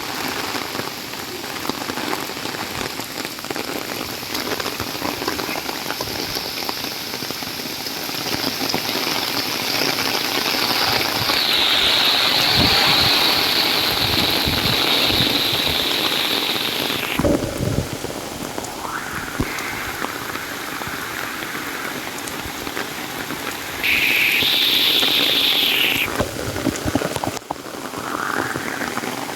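Torrential rain pouring down in a steady hiss. It swells louder midway, drops off sharply, then surges again briefly near the end.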